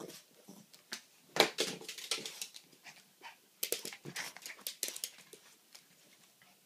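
Small dog scrambling about excitedly on a blanket over a hard floor: an irregular flurry of claw clicks, scuffs and blanket rustles, loudest about a second and a half in, fading out near the end.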